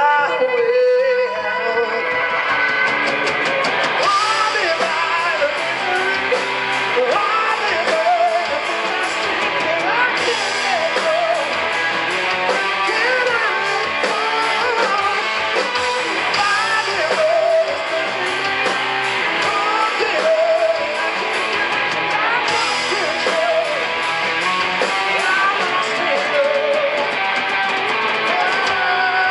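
Live rock band playing loudly through a PA: electric guitars over a drum kit, with steady cymbals and a bending lead line on top.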